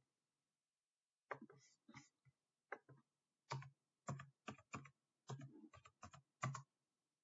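Computer keyboard typing: a dozen or so separate key clicks at an uneven pace over about five seconds, as a short code is keyed in.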